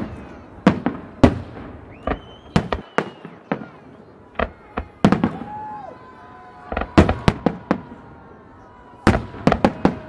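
Aerial firework shells bursting: an uneven series of about twenty sharp bangs, some coming in quick clusters.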